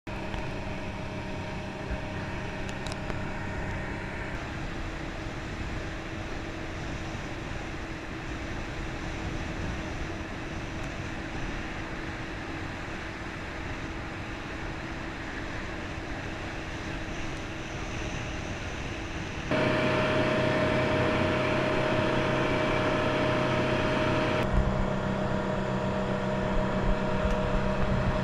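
Steady boat engine hum with a few held tones. The sound steps up abruptly about two-thirds of the way through and changes character again a few seconds later.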